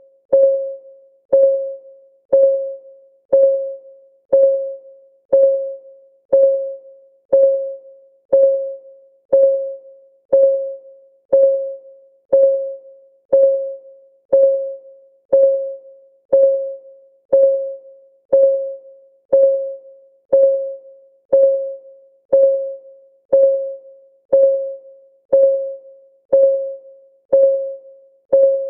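Countdown timer ticking, one short, pitched tick each second that rings briefly and dies away, in an even, steady rhythm.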